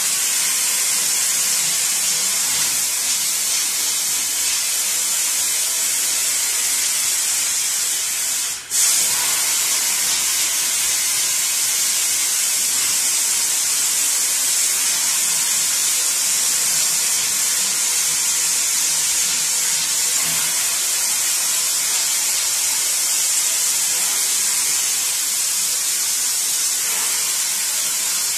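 Water hissing steadily from a handheld spray nozzle onto a print lying in a stainless-steel sink, washing excess oil paint off the print's first layer. The spray breaks off for a moment about nine seconds in.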